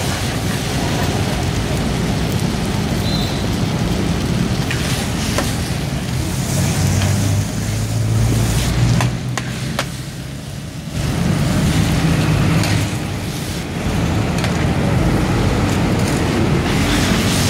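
Two metal spatulas scraping and clinking against a large wok as a big batch of pad thai noodles is tossed, with scattered sharp clicks, over a steady low rumble of traffic.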